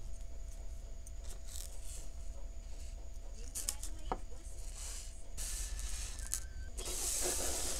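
Jewelry pliers clicking and small metal jump rings and rhinestone cup chain tinkling as the rings are opened and hooked onto the chain, heard up close as scattered small clicks. A soft rustle near the end, over a low steady hum.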